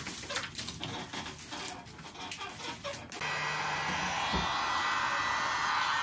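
Light clicking and handling rustle. About halfway through, a handheld electric heat gun is running steadily: a constant rush of blown air over a low motor hum.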